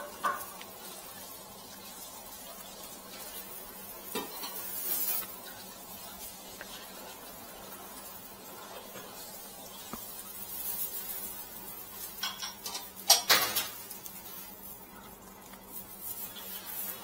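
Dry straw rustling and crackling as it is twisted and woven into a waraji straw sandal, with a cluster of sharp crackles about twelve to thirteen seconds in.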